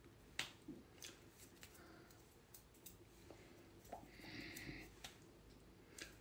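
Near silence: room tone with faint clicks and rustles from a person signing, as the hands touch and the lips and breath move. There is a sharper click about half a second in and a brief soft hiss about four seconds in.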